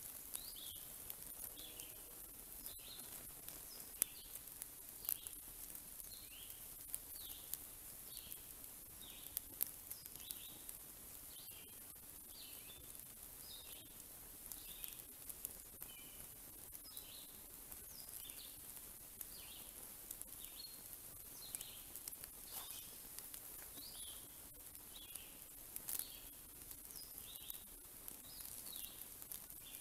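Wood fire crackling with sharp pops over a soft hiss, while a bird repeats a short chirp about once a second.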